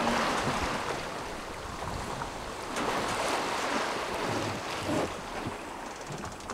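Sea water rushing past a sailboat under way, mixed with wind noise; the rush swells twice, a few seconds apart.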